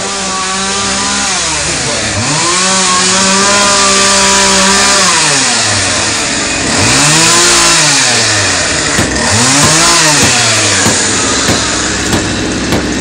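Power tool motor running loudly, its whine repeatedly winding down and speeding back up over a rough hiss. From about 11 seconds in, a few hammer blows join it.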